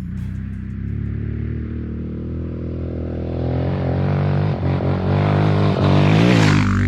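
Honda XR650 dual-sport motorcycle's single-cylinder engine accelerating, its pitch climbing steadily through the gears over several seconds and getting louder. Rushing wind noise builds near the end.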